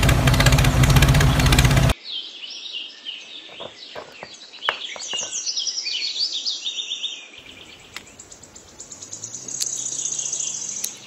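A loud engine-like running noise cuts off abruptly about two seconds in. Birds then chirp and trill in the background, with a few sharp clicks shortly after the cut.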